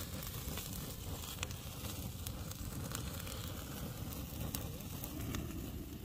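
Open campfire of dry branches and brushwood burning, with scattered sharp crackles and pops over a steady low rush.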